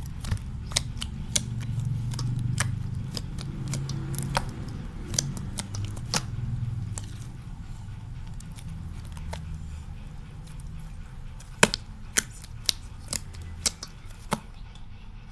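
A large batch of slime being squished and worked, giving irregular sharp clicks and pops, with a few louder pops in the last few seconds.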